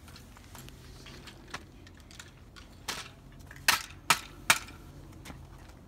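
Sharp cracking hits on the plastic of an RC car being smashed apart, with a few light clicks and taps, then four loud blows in quick succession in the second half.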